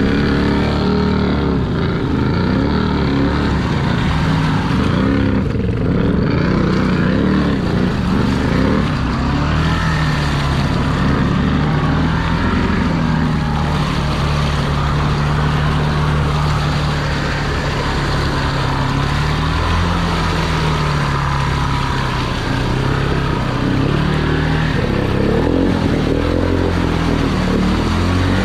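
Honda Big Red's engine running under load through deep mud, its revs rising and falling again and again and held steadier about midway through, with the churn of mud and water thrown up by the tyres.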